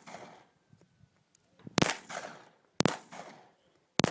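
Three gunshots about a second apart, each followed by a short echo.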